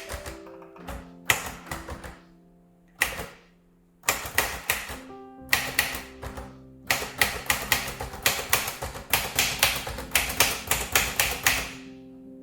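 Smith Corona Calypso manual typewriter being typed on: type bars strike the platen in scattered keystrokes with short pauses, then in a fast, steady run of typing over the second half that stops shortly before the end.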